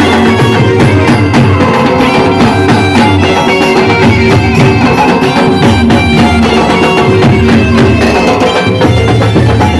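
Loud music with heavy drumming and a pounding bass beat, played at high volume through a large sound system during a sound check.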